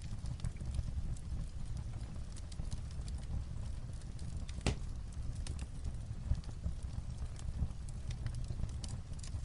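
Fireplace crackling, scattered pops with one louder crack about halfway through, over the steady sound of light rain on a roof.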